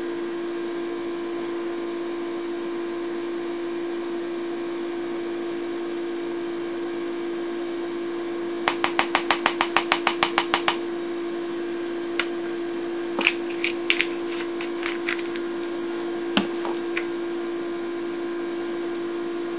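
Steady electrical hum throughout. About nine seconds in comes a quick run of a dozen light clicks, about six a second, followed by a few scattered single clicks: a metal spoon knocking against a plastic tub as the moisturizer mixture is stirred.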